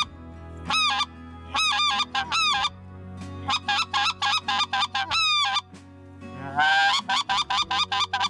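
Mouth-blown goose call giving plain honks without throat modulation, in doubles and triples, each note breaking sharply in pitch. Near the end a longer rising note runs into a quick string of honks.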